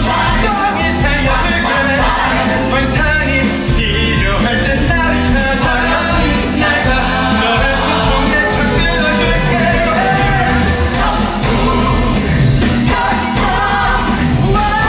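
Live musical-theatre song: cast voices singing over an upbeat rock-style band backing.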